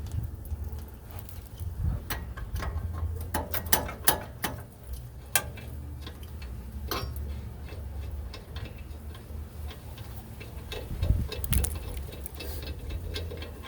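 Hand ratchet clicking in irregular runs, with a few sharper metal clinks, as the wheel hub assembly's already broken-loose bolts are backed out.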